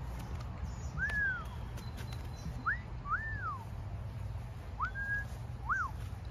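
A series of about five clear whistled notes, each a short rising slur or a rise-and-fall, spaced unevenly over several seconds, over a steady low rumble.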